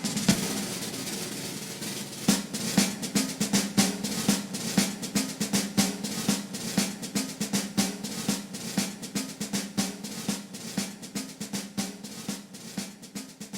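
Background music led by fast, busy snare-drum and percussion hits over a steady low note, slowly getting quieter toward the end.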